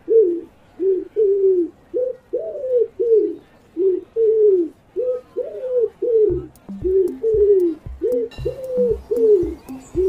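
Pigeon cooing in a steady run of soft coos, about two a second, each rising briefly and falling away. From about six seconds in, a low regular beat runs underneath.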